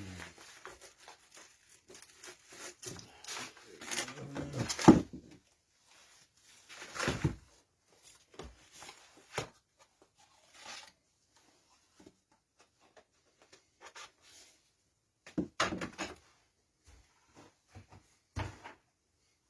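Handling noises in a workshop: a series of knocks and clunks, the loudest about five seconds in, then scattered lighter taps with quiet gaps between; no machine is running.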